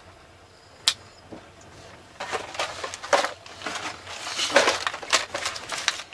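Cardboard meal boxes being handled and set down on a compartment table, with irregular rustling and knocks of cardboard from about two seconds in, after a single sharp click about a second in.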